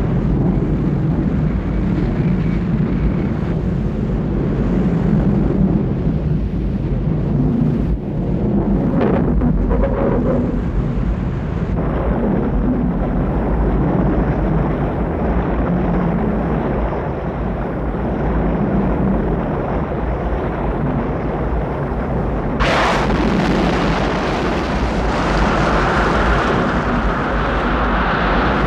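Film sound effects of the sunken Titanic's hull lifting off the seabed: a loud, continuous deep rumble. About three-quarters of the way through, a brighter rushing noise comes in and builds.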